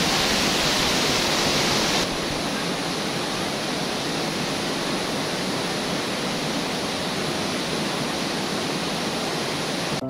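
Water rushing down a waterfall and over rocks, a steady hiss. About two seconds in it drops a little quieter and less bright, as it turns to a river cascading between rocks.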